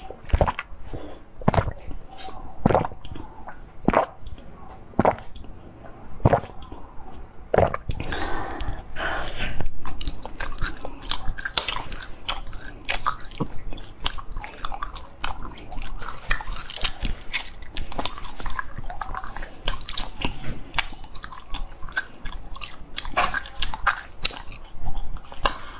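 Close-miked biting and chewing of a tall yellow jelly. For the first several seconds come single sharp bites about once a second, then dense, crackly chewing.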